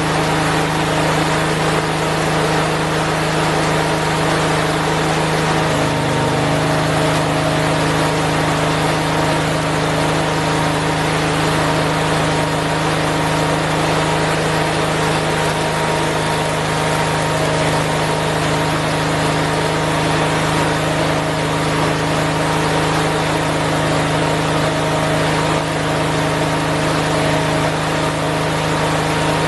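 Small garden-tractor engine running steadily, its pitch stepping slightly about six seconds in.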